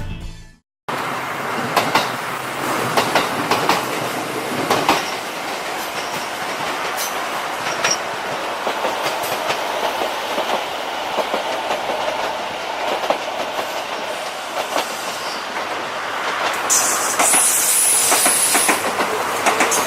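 A train passing over a railway level crossing, its wheels clacking over the rail joints and crossing frogs in a steady run of knocks. A high-pitched squeal comes in about three-quarters of the way through.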